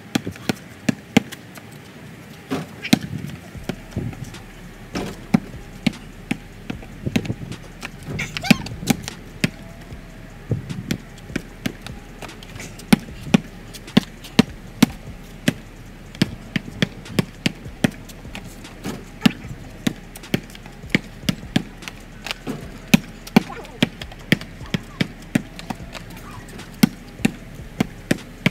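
Basketball bouncing on a paved driveway: a steady run of sharp dribbles, about two a second at times, with a few louder impacts in between.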